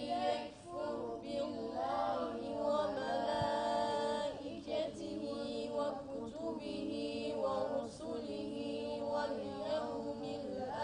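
A group of boys chanting a Quranic verse in unison in a melodic recitation style, with drawn-out, gliding notes.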